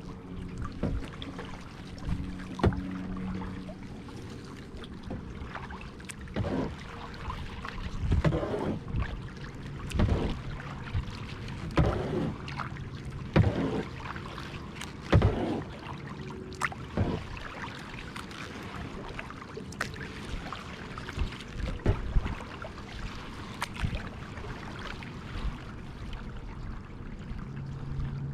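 Kayak paddle strokes in lake water: the blade dipping and pulling through the water in a steady rhythm, a splash about every one and a half to two seconds.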